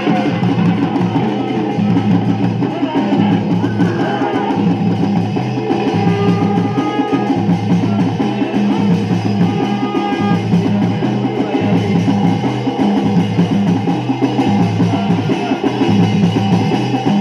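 Fast, steady drumming with ringing metallic tones: the daunr drum and struck brass thali accompaniment of a Garhwali jagar, played without singing.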